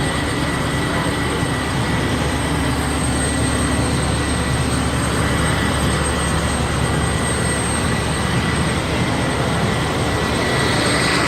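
Helicopter running: a steady, loud engine and rotor noise with a thin high whine, growing slightly louder near the end.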